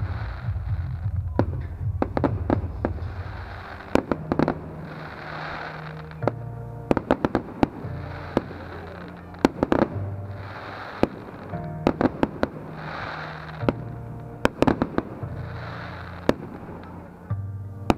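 Aerial fireworks bursting: repeated sharp bangs, some coming in quick crackling clusters. Music plays underneath with steady low bass notes.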